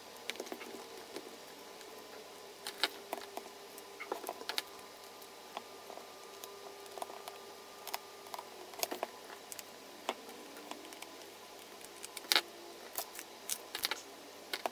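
Scattered small clicks and taps of hand work: a plastic cable-clamp strain relief being fitted and screwed down inside a 13-amp socket body with a small screwdriver.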